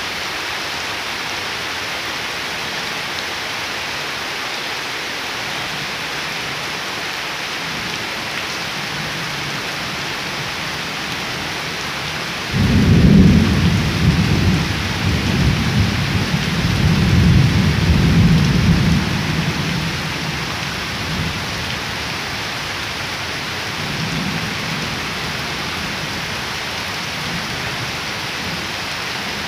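Heavy rain pouring steadily onto puddled ground and leaves. About twelve seconds in, thunder breaks in suddenly and rumbles low for about seven seconds, with a fainter rumble a few seconds later.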